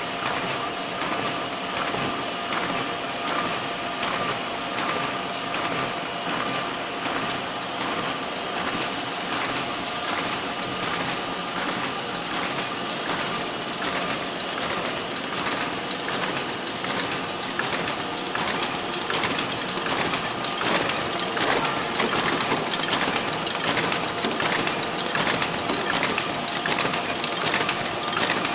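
Stahl KC 66 paper folding machine running, feeding and folding sheets with a rapid, even clatter over a steady motor hum and whine. The clatter grows a little louder about two-thirds of the way through.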